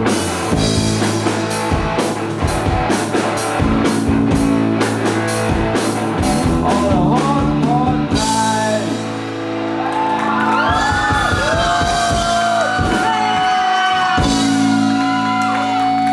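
Live rock band playing electric guitar, bass and drums with singing. The drum beat stops about halfway through, leaving held chords and sliding high notes.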